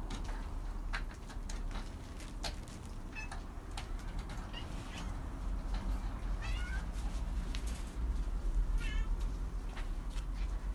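Cats meowing: about four short, high, wavering meows spread a couple of seconds apart, over a low rumble with scattered clicks.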